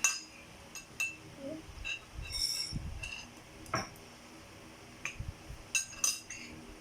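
Forks and spoons clinking against plates during a spaghetti meal: scattered light clinks and taps every second or so.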